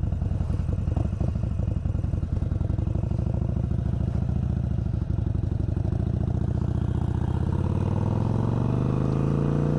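Harley-Davidson Iron 883's air-cooled 883 cc V-twin engine running as the motorcycle rides along. Over the last few seconds the engine note climbs steadily in pitch as it accelerates.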